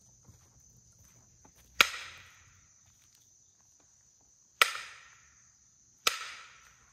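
Three loud tree knocks, wood struck hard against a tree trunk: the first about two seconds in, the last two a second and a half apart, each ringing out with a short echo through the woods. A steady high insect drone runs underneath.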